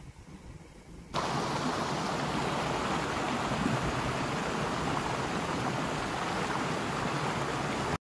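A steady, even rushing hiss that starts suddenly about a second in and holds unchanged, like running water or strong outdoor air noise. It cuts off abruptly at the end.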